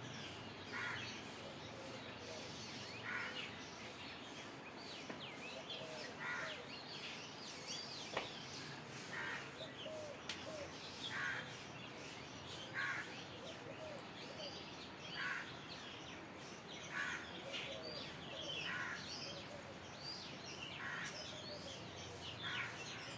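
A bird calling again and again outdoors, one short call roughly every two seconds, with fainter chirps from other birds between the calls.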